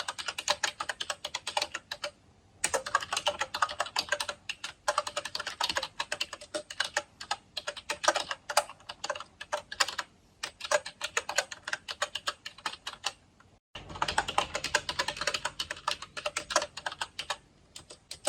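Typing on an Actto Retro Mini B303 Bluetooth keyboard: fast runs of key clicks, broken by brief pauses about two seconds in, around ten seconds in, and shortly before the last run.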